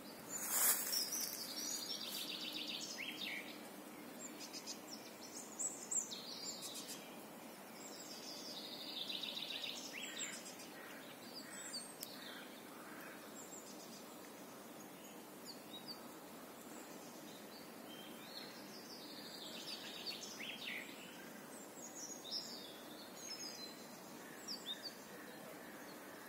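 Songbirds singing: a fast trill that falls in pitch comes three times, several seconds apart, with short high chirps in between.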